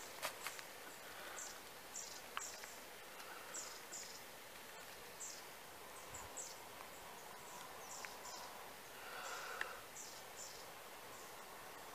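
Soft puffs of breath blown into a bundle of grass-and-bark tinder around a smouldering ember, repeated about every half second, with a longer blow about nine seconds in. A few faint clicks from the tinder being handled.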